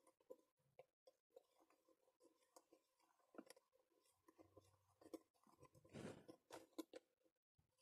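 Near silence with faint scattered clicks and small crackles from fingers handling a plastic two-compartment paint-water cup and its lid, a little louder about six seconds in.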